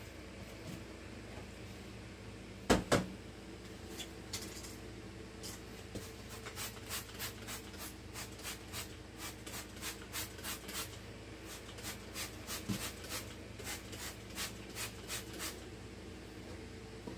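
A sharp double clatter of items knocking in a kitchen sink, then about ten seconds of quick, evenly paced scrubbing strokes, two or three a second.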